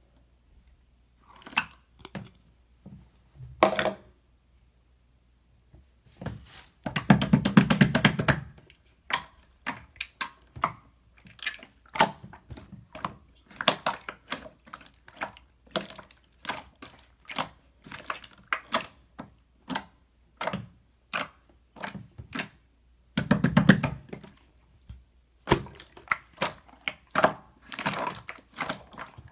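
Close handling noises: a string of sharp clicks and crinkling, with two longer crinkly rustles about seven seconds in and again near twenty-three seconds.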